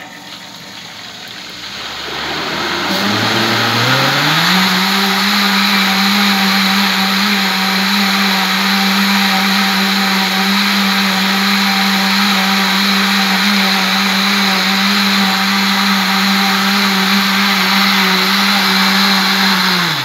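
Arno Power Max 1000-watt six-blade blender churning a jar of water filled to its 1.75-litre liquid limit: the motor spins up, rising in pitch over the first few seconds as it goes from minimum to maximum speed, then runs steadily at full speed and winds down as it is switched off near the end.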